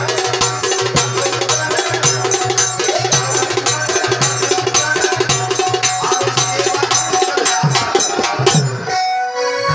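Live Marathi folk music: hand drums beat a fast, even rhythm over a sustained low note, and the music breaks off briefly about nine seconds in.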